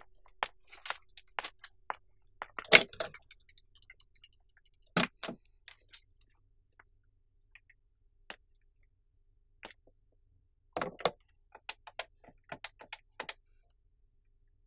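Sparse light clicks and knocks of someone moving about and handling things at an office desk, with one louder knock about three seconds in. Near the end comes a quick run of about a dozen clicks as a desk telephone is picked up and a number keyed in.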